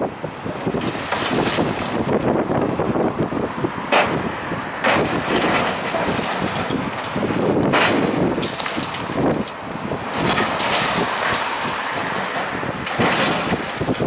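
Building demolition: rubble and debris crashing and clattering down over a steady noise of heavy machinery, with wind buffeting the microphone. Sharp cracks stand out about four seconds in and again near eight seconds.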